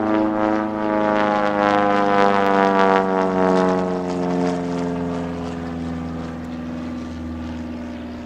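Super Chipmunk aerobatic plane's piston engine and propeller droning as it flies past, the note sliding slowly down in pitch. It is loudest in the first three seconds, then fades as the plane moves away.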